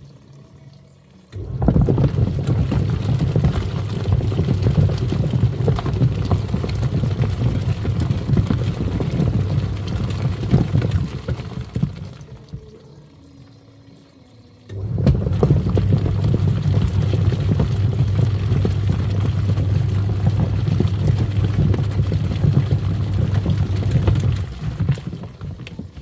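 Twin-tub washing machine's wash tub churning foamy water, with a steady motor hum under the sloshing. It runs in two stretches about ten seconds long, with a short pause between them, as the agitator stops and starts again.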